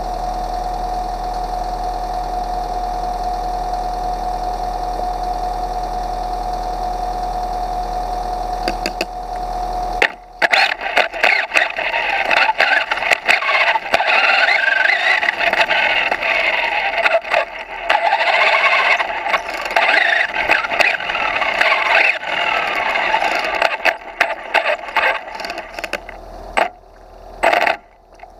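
Radio-controlled car heard from a camera mounted on its own chassis: a steady hum with a high tone while it sits still, then from about ten seconds in the loud, rough, rattling drivetrain and tyre noise of the car driving, rising and falling with the throttle and breaking off several times near the end.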